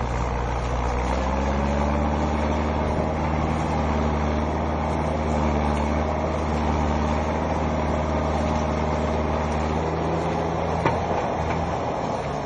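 Farm tractor's engine running steadily under heavy load while the weight of the loaded trailer lifts the tractor's front wheels off the ground. The note rises slightly near the start and changes about ten seconds in, with a short knock soon after.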